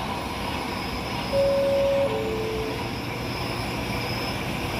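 A two-tone train horn blast about a second in: a high note held for under a second, then a shorter, lower note. Behind it is steady railway noise.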